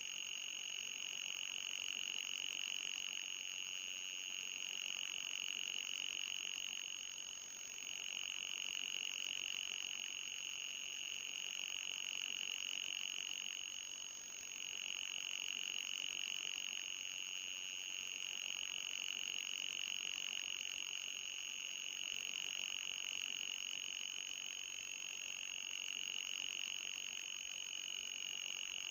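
Electronic anti-mosquito repellent tone: a steady high-pitched whine with a fainter, higher whistle above it. It dips briefly about seven and fourteen seconds in.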